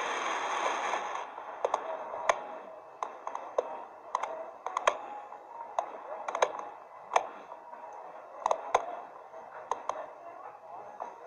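Sharp clicks at irregular intervals, single or in quick pairs, roughly one to three a second, over low background noise. A short hiss of noise fills about the first second.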